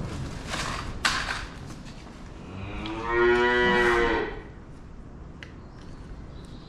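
A cow mooing once, a long call about three seconds in that is the loudest sound. Just before it come two short, sharp noises.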